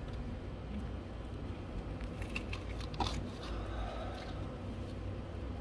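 Small plastic clicks and crunches of a hand and pick working a quick-connect hose fitting under the intake manifold, clustered about two to three seconds in with the sharpest click near the middle, over a steady low hum.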